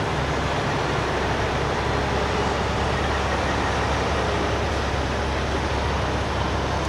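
Diesel semi-truck driving slowly past, its engine running steadily under road and traffic noise. The sound holds at a constant level, with a deep low drone.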